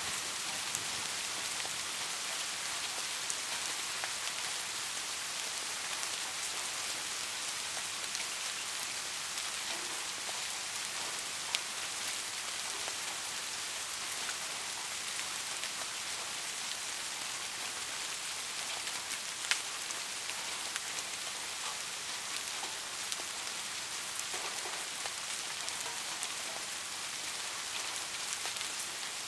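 Steady rain falling: an even hiss, with scattered sharp ticks of single drops, the loudest about twelve and about nineteen seconds in.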